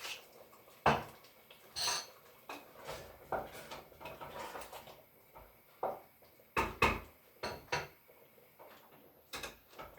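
Kitchen utensils clinking and knocking against a cooking pot and dishes: a string of separate sharp knocks with quiet gaps, the loudest about a second in and a close pair around seven seconds.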